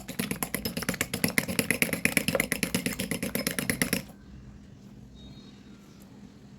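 A utensil beating pancake batter in a bowl: fast, even clicking strokes, about ten a second, that stop abruptly about four seconds in, leaving a faint low hum.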